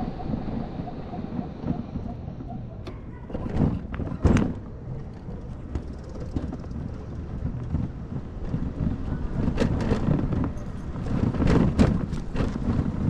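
Wind rushing over an action camera's microphone while riding an electric scooter, with a low road rumble underneath and a few sharp knocks, the loudest about four seconds in and more near the end.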